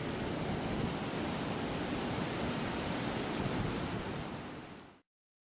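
Sea surf breaking on a beach with wind on the microphone, a steady rushing noise that fades out about four seconds in and stops just after five.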